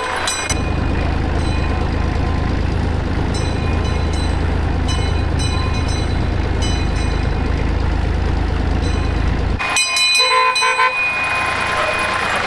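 1960 Fordson Dexta tractor's three-cylinder Perkins diesel running steadily, heard up close from the driver's seat, with faint clangs of a handbell ahead. About ten seconds in the engine drops away and the handbell rings loudly in a quick run of strokes.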